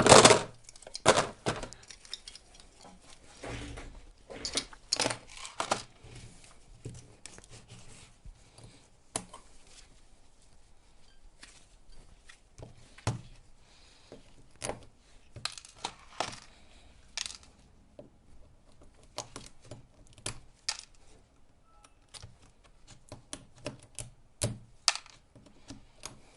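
Irregular metallic clicks, clinks and knocks of lithium-ion battery cells, nickel strip and hand tools being handled on a workbench, with the loudest clatter at the very start.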